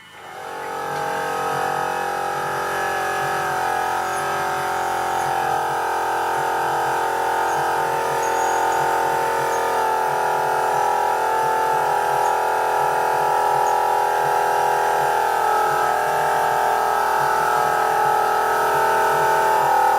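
Electric power saw cutting through an 18 mm board, its motor coming up to speed in the first second, then running with a steady whine.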